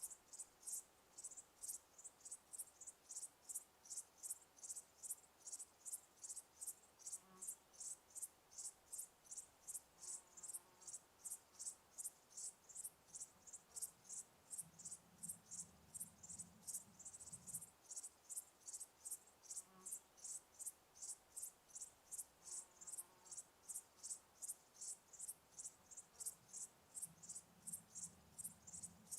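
A cricket chirping steadily and high-pitched, in an even rhythm of a little over two chirps a second.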